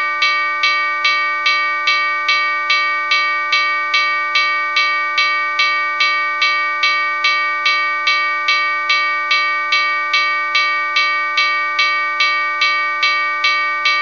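Railroad crossing warning bell ringing steadily, about two strikes a second without a break, the signal that a train is approaching.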